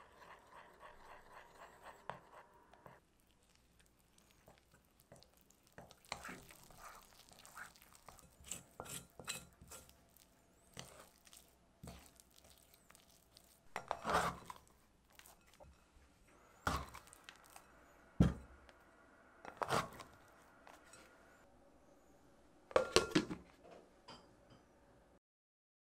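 Kitchen handling sounds: scattered clinks and knocks of utensils against bowls and dishes, with some crinkling in between, and several sharper knocks in the second half.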